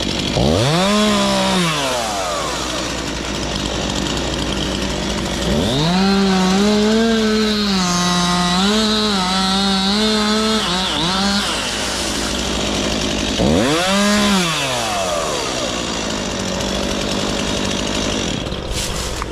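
Gas chainsaw idling and throttled up three times: a short rev about a second in, a longer run at full speed from about six to eleven seconds in with small dips in speed, and another short rev around fourteen seconds in.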